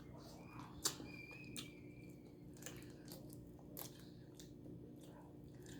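Quiet eating sounds from head-on shrimp: scattered soft mouth clicks and smacks of chewing, with one sharper click about a second in, over a low steady hum.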